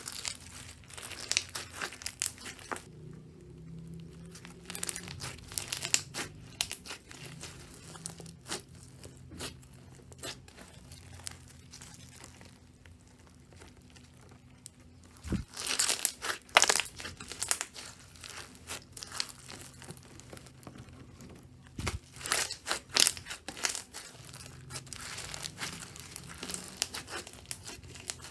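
Slime being squeezed, pressed and stretched by hand, giving irregular crinkly crackles and sticky pops, loudest in two busier flurries a little past halfway and later on.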